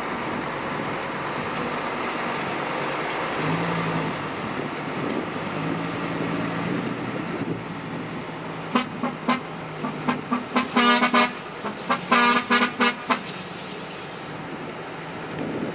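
A heavy diesel engine runs steadily. About halfway through, a vehicle horn sounds in a rapid run of a dozen or so short toots lasting about four seconds.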